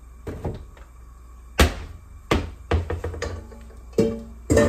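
A series of knocks and thunks as kitchen things are put away and handled, about eight in all, the loudest about one and a half seconds in. Near the end a stainless steel mixing bowl is knocked, with a short ring.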